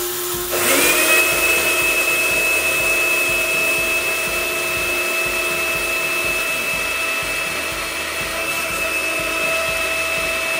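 Two electric blade coffee grinders running together, chopping dry-roasted coriander seed: a loud, steady motor whine, with the second grinder spinning up in a rising whine about half a second in.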